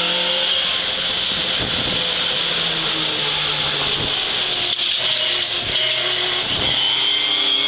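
Mk2 Ford Escort rally car's engine running hard, heard from inside the cabin, its note breaking off and picking up again several times. Several knocks from the car's body and suspension as it crosses bumps.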